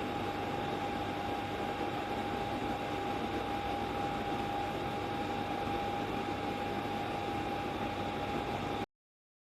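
LifePro DH24 compressor dehumidifier running: a steady fan rush with a constant whine over it, which cuts off abruptly near the end.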